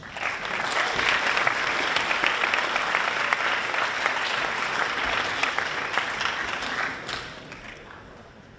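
Assembly audience applauding: many hands clapping at once, starting straight away and dying away about seven seconds in.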